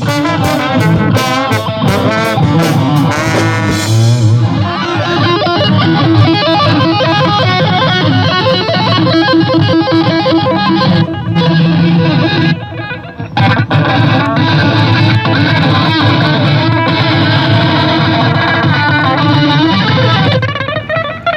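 Live rock band playing an instrumental passage led by distorted electric guitar. The music breaks off for about a second partway through, comes back in, and drops away near the end.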